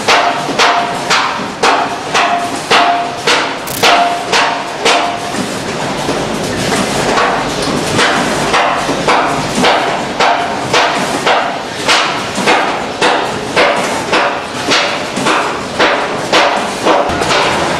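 Packaging-line machinery clattering in a fast, even rhythm of sharp knocks, about three a second, with a steady tone running under it for the first few seconds and again near the end.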